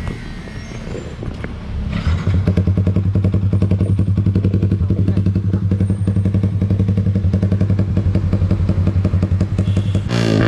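A motorcycle engine idling with an even pulsing beat, which starts up about two seconds in. Near the end it revs up.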